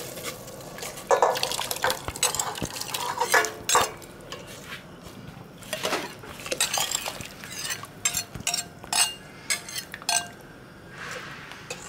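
Utensils clattering and scraping against cookware while food is handled, with liquid sounds. A few knocks ring briefly near the end.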